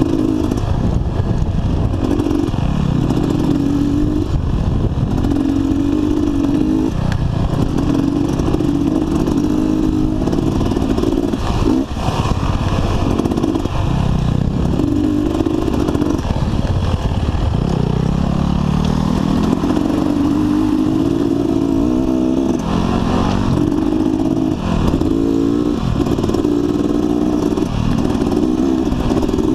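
Dirt bike engine heard close up from the rider's own bike, revving up and dropping back again and again as it is ridden along a rough dirt trail, with a long climb in pitch about two-thirds of the way through.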